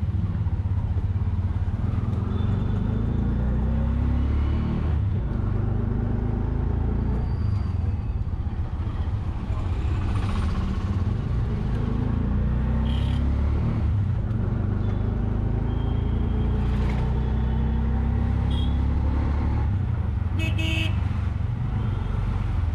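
An auto rickshaw's engine runs under way, its drone rising and falling as it speeds up and slows through traffic, heard from inside the open cabin. Vehicle horns toot several times, with a longer honk about twenty seconds in.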